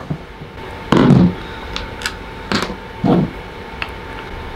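A few knocks and clicks of a disassembled impact driver's plastic housing and a screwdriver being handled and set down on a tabletop, the loudest about a second in, over a faint steady hum.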